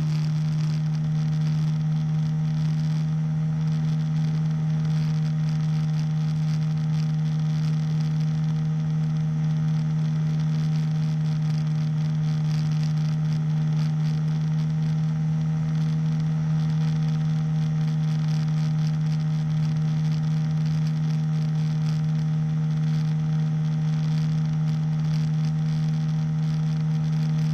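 Engine of a powered hang glider running at a steady cruise-climb throttle: a constant, unchanging drone with a strong low hum and steady overtones, over wind and propeller noise.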